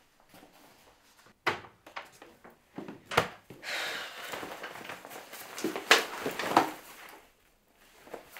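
A few sharp knocks and thuds, then a stretch of rustling and rummaging as a school backpack is opened and books and a magazine are pulled out of it.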